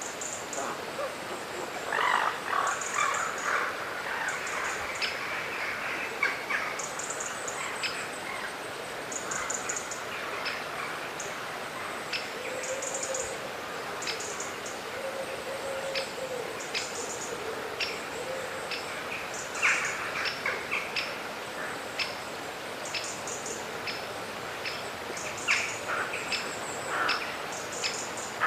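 Swamp forest ambience: birds chirping in short, repeated high calls over a steady hiss. Louder noisy bursts come a couple of seconds in and again later, and a low call is held through the middle.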